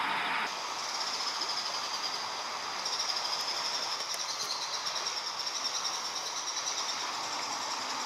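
A chorus of singing insects: a steady, high-pitched, fast-pulsing buzz that takes over after an abrupt change in the background about half a second in.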